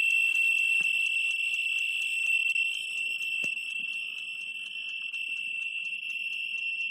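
Geiger counter's speaker giving a continuous high-pitched buzz, its clicks run together into one tone by the very high count rate from uranium ore strong enough to peg the meter on the times-10 scale. The buzz drops a little about three seconds in.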